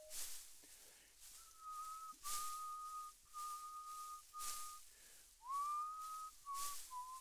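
A person whistling a slow tune in long held notes, with one note sliding up about five seconds in. Short breathy hisses fall between the notes.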